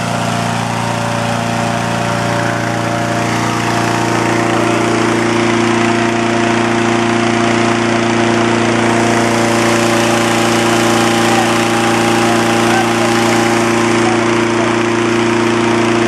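Petrol-engined balloon inflator fan running steadily at speed, blowing cold air into a hot-air balloon envelope. The sound grows slightly louder about four seconds in.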